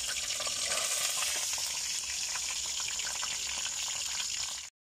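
A fish frying in hot oil in a wok over a wood fire: a steady sizzle with fine spattering ticks, cut off suddenly near the end.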